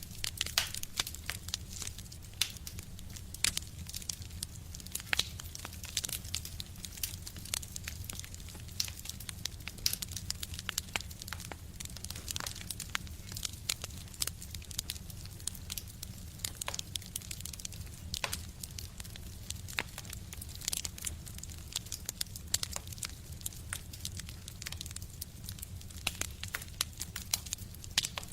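Wood fire burning in a stove, crackling with irregular sharp pops over a steady low hum.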